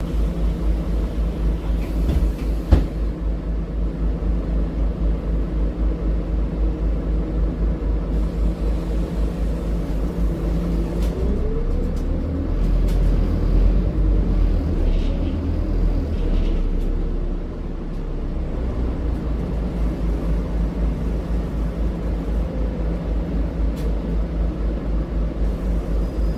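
Engine of a Scania Citywide articulated city bus heard from the rear seats, running with a steady pulsing low rumble. It grows louder through the middle with a short rising whine, then eases off. A single sharp click a few seconds in.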